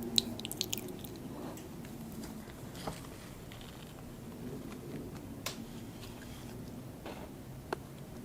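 A person biting and chewing food close to the microphone: a quick cluster of wet clicks and smacks in the first second, then slower chewing with a few single sharp clicks.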